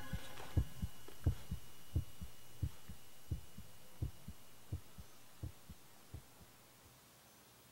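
Heartbeat sound effect: paired low thuds, lub-dub, repeating about every 0.7 s, growing steadily fainter and stopping about six and a half seconds in.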